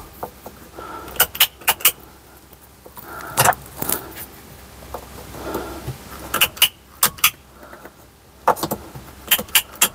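Scattered sharp metallic clicks and light jingling of small metal parts, such as wire connectors and tools, being handled during work on a vehicle's lighting wiring, coming in irregular clusters.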